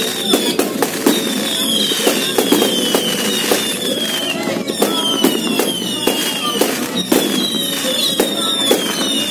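Fireworks display: a rapid barrage of aerial shells bursting and crackling, with falling whistles about once a second.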